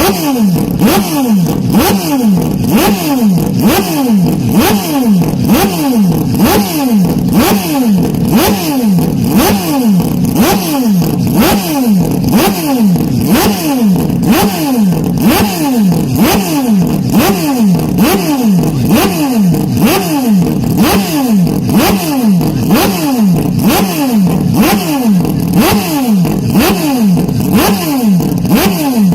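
Loud race car engine sound with a falling pitch, like a car passing by, repeated over and over at a rapid, perfectly even rate, as if looped.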